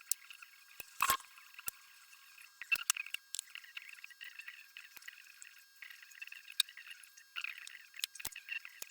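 Irregular light clicks and clinks over a faint hiss, thin and tinny with no low end.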